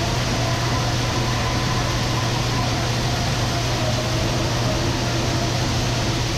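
Corn grain dryer running: a steady, loud fan drone with a constant low hum.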